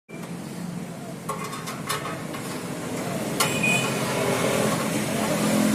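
A few light metallic clinks and knocks as the sheet-metal housing of a mini rice mill is handled and fitted onto its steel stand, the clearest ringing briefly a little past halfway, over a steady background hiss.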